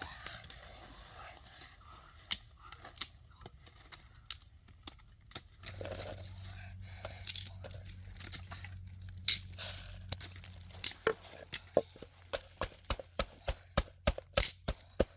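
Chopping and cutting with a blade: irregular sharp knocks with crunching and tearing, settling into a steady run of chops, about two a second, near the end.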